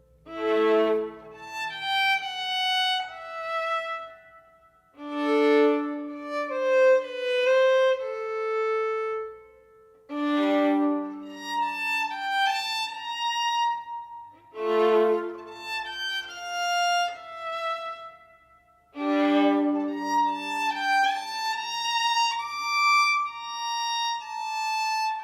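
Background music: a melodic instrumental piece in phrases that start afresh about every four to five seconds.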